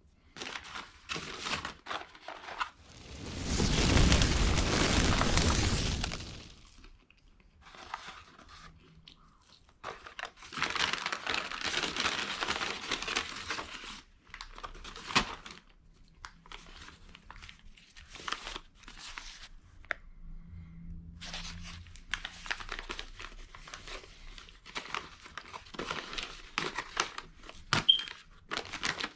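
Irregular crinkling and rustling, with a louder rushing noise from about three to six seconds in.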